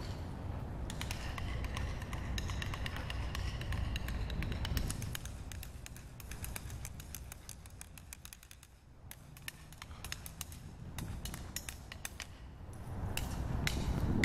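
Outdoor ambience: a steady low rumble with many faint, irregular clicks and ticks, dipping quieter about two-thirds of the way through and building again near the end.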